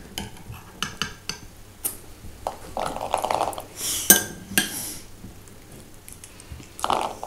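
Metal spoon clinking and tapping against a plastic bowl and a tin can while spooning canned green peas, in scattered light clicks with a few short scrapes.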